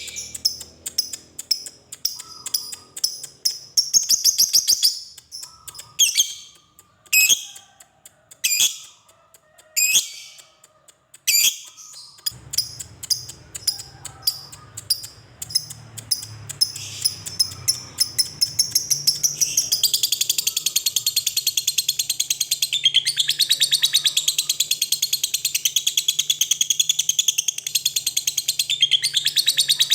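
Lovebird singing: sharp, separate high calls with short gaps, then about twelve seconds in it breaks into a fast chatter that becomes one long unbroken trill from about twenty seconds in, the 'ngekek' song.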